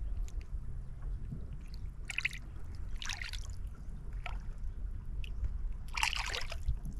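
Shallow seawater splashing and trickling in short bursts, about two, three and six seconds in, the last the loudest, as gloved hands move a cornetfish at the surface. A low steady rumble lies underneath.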